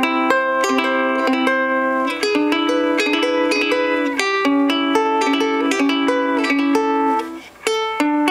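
Koa-wood ukulele played fingerstyle: a melody of plucked notes over ringing chords, with a short break about seven and a half seconds in.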